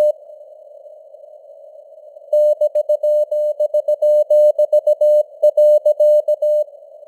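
Morse code (CW) at 17 words per minute: a single steady tone keyed on and off in dots and dashes over a narrow hiss of simulated radio receiver noise. For the first two seconds or so only the hiss is heard. Then a run of keyed characters lasts about four seconds, and the hiss is left alone again.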